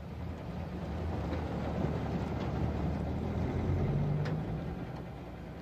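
Vintage car engine running at low speed, a steady low hum that swells and then fades over a few seconds, with a few faint ticks.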